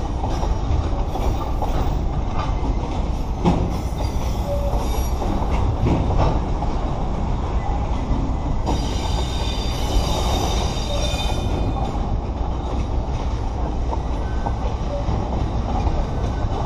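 Container flat wagons of a freight train rolling past slowly on yard track, with a steady rumble and a few sharp clanks. A high wheel squeal sounds for about three seconds near the middle.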